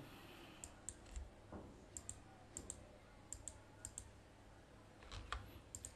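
Faint clicking at a computer: about half a dozen pairs of quick clicks, spaced irregularly, over quiet room tone.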